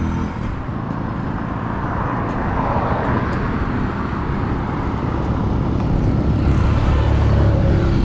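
Road traffic: motor vehicles driving with a steady rush of engine and tyre noise, and a low engine hum that grows louder from about six seconds in.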